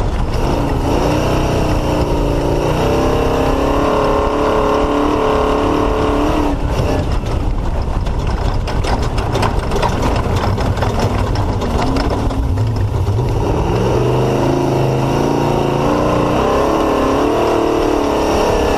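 Off-road race vehicle's engine running hard, its pitch rising and falling with the revs. From about six seconds in to about thirteen seconds in, a dense clatter of knocks and rattles from the vehicle crashing over rough ground covers it. After that the engine climbs in pitch and pulls on again.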